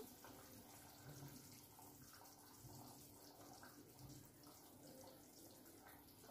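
Near silence: a pan of egg curry simmering faintly on the stove, with small irregular bubbling sounds.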